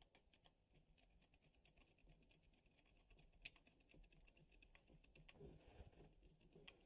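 Faint clicking and scraping of a screwdriver tightening the cable-clamp screw inside a steel electrical box, securing Romex cable, with one sharper click about three and a half seconds in.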